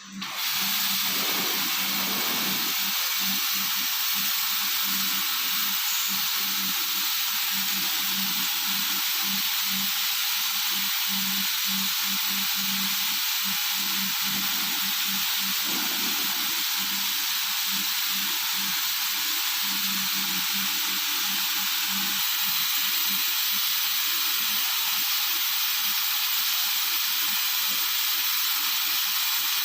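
Thin-wall spiral tube welding machine at work, giving a steady hiss with a low hum that comes and goes.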